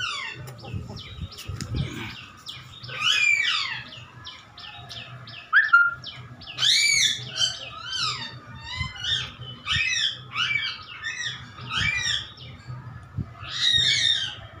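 Newborn German Shepherd puppies squeaking and mewling while they nurse: a steady run of short, high, downward-gliding squeaks, about one or two a second.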